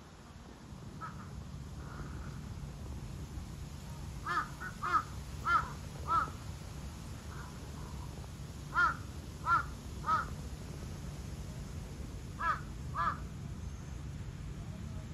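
A crow cawing in three runs of evenly spaced caws: four about four seconds in, three near the middle and two near the end, over a low steady background rumble.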